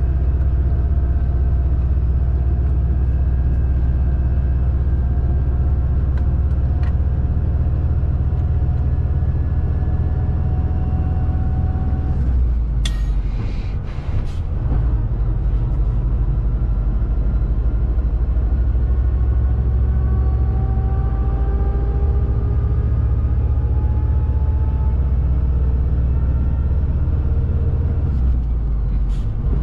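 Shacman X3000 heavy truck's diesel engine pulling under full load, heard from inside the cab as a steady low drone with road noise, its pitch slowly climbing. About 13 seconds in the drone drops and shifts with a few short air hisses, like a gear change, and something similar comes again near the end.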